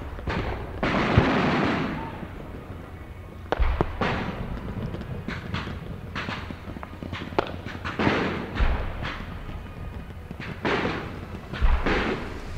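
Anti-aircraft barrage: irregular sharp cracks of flak guns and bursting shells, with a heavy low thump every few seconds.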